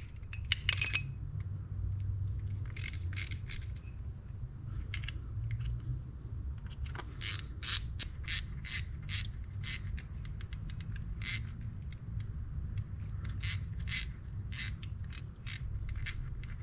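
Small metal parts of a Shimano Stella FE spinning reel clicking and scraping against each other as the reel is reassembled after a drag-washer service. Scattered sharp clicks, coming thick and irregular from about seven seconds in, over a low steady hum.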